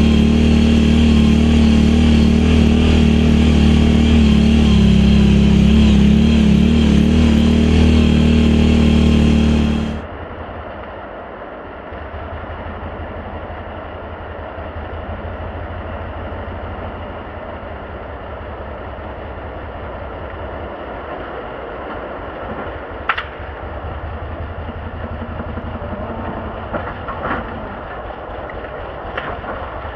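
Can-Am Outlander XMR 1000's Rotax V-twin running loud and steady through dual slip-on exhausts. About ten seconds in it drops abruptly to a much quieter, low, pulsing run, with a few sharp clicks near the end.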